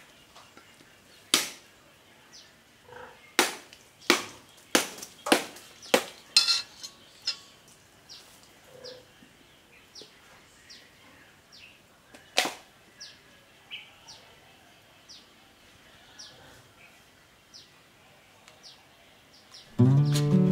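Sharp clicks and knocks, a quick run of about eight in the first seven seconds and one more around twelve seconds in. Under them a bird repeats a short falling chirp about every three-quarters of a second.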